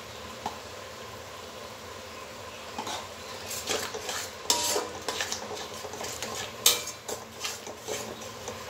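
A metal spatula scraping and knocking against a metal kadai as a thick masala paste is stirred, starting about three seconds in as irregular scrapes and clanks, with a few louder knocks.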